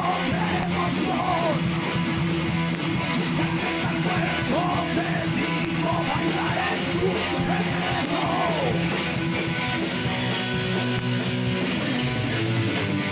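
Rock band's home-recorded demo: distorted electric guitar playing over drums with a steady beat, with gliding pitched lines over the top.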